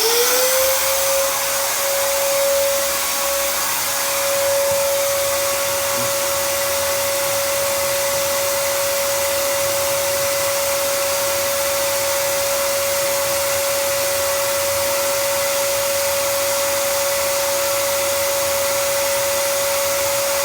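Shop vac switched on with its outlet blowing air. The motor whine rises over about a second to a steady high pitch and then runs steadily, with a constant rush of air.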